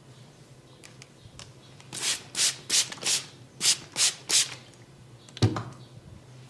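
A massaging barber's hands rubbing in about seven brisk strokes, roughly three a second, followed a second later by a single sharp smack.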